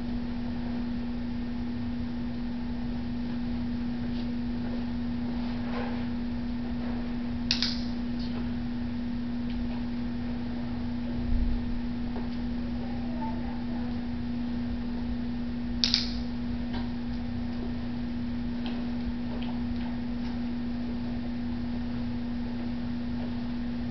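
Steady low hum in a quiet room, broken by a person's footsteps on a hard, polished floor: two short, sharp squeaks, about 7.5 and 16 seconds in, and a soft thump near the middle.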